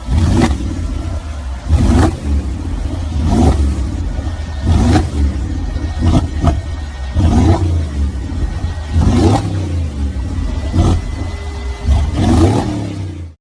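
An engine with a loud exhaust being revved in short blips over and over, about one every second and a half, each rev rising in pitch and dropping back, over a deep steady rumble; it cuts off abruptly at the end.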